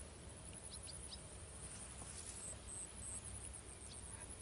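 Insects trilling in the grass: a steady high-pitched buzz with short pulses repeating every few tenths of a second, and a few faint short chirps over it.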